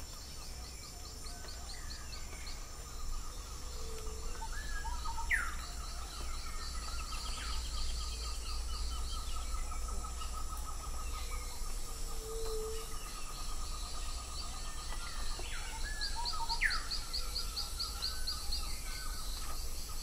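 Tropical rainforest ambience: insects trilling in fast pulsed rhythms under several birds calling, with a sharp rising whistle twice and a short low note about twelve seconds in.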